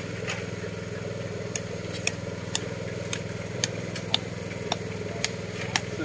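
An engine running steadily at a constant low hum. From about a second and a half in, sharp ticks come about twice a second.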